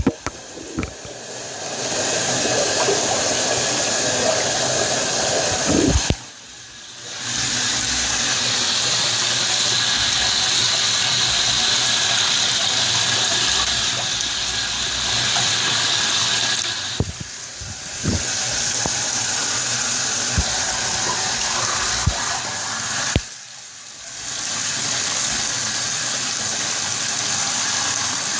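Running water, a steady rush that breaks off three times for a second or so, with a few sharp knocks in between.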